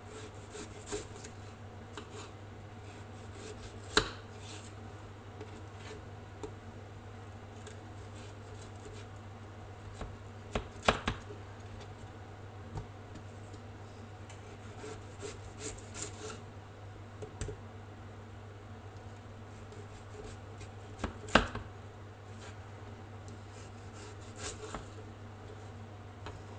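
Kitchen knife slicing through raw potatoes on a wooden cutting board: short cutting and scraping strokes with a few sharp knocks scattered through.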